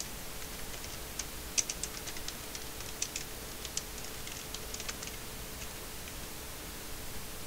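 Typing on a computer keyboard: a run of quick, uneven key clicks starting about a second in and stopping about two seconds before the end, over a faint steady hum and hiss.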